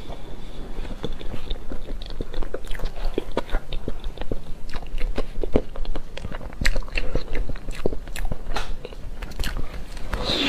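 Close-up eating sounds of chocolate mousse cake: a spoon taking bites, with biting, chewing and crisp crunching as many short, irregular clicks.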